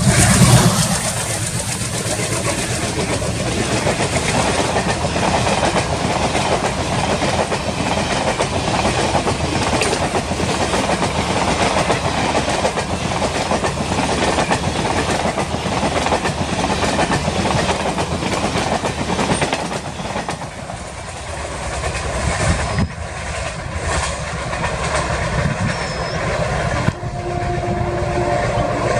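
Empty freight wagons of a train hauled by a WDG3A ALCO diesel roll past at speed, a continuous rattle and clatter of wheels over the track. A heavier low rumble comes in the first second.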